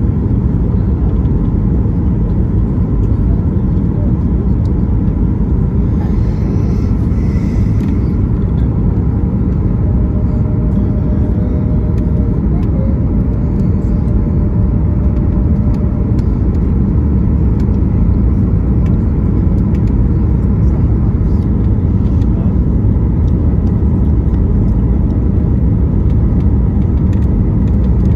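Steady low roar of an airliner cabin on approach: jet engines and the rush of air over the wing with its flaps extended, heard from inside the cabin.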